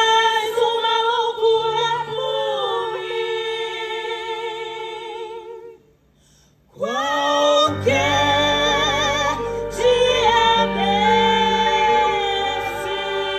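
Female vocal ensemble singing long held notes with vibrato in harmony. About six seconds in the sound stops for under a second of near silence, then the voices come back in fuller, with a low bass underneath.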